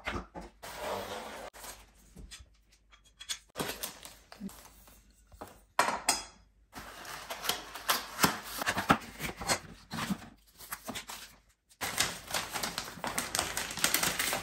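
Paperboard packaging being handled: crackling, clicking and rustling as a towel bar's box is folded open and the parts taken out, in several bursts with short pauses. Near the end, a paper instruction sheet rustles as it is unfolded.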